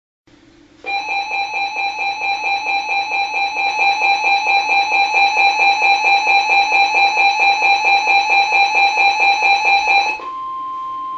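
Weather radio receiver's loud pulsing electronic alert alarm, going off for about nine seconds as a severe thunderstorm warning comes in. As it cuts off, the broadcast's steady warning alarm tone is heard alone for about a second.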